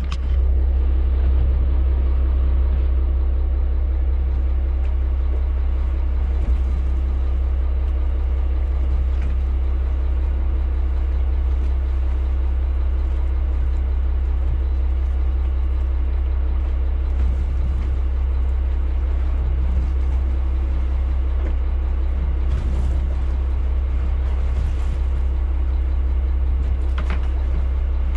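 Boat engine running with a steady, deep drone.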